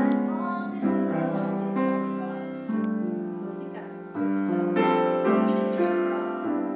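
Grand piano playing slow, sustained chords. A new chord is struck every second or so and left to ring and fade.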